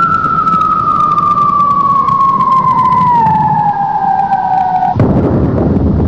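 A siren-like sound effect: one long tone sliding slowly down in pitch over about five seconds above a low rumble. It cuts off suddenly about five seconds in, and a louder, fuller noise takes over.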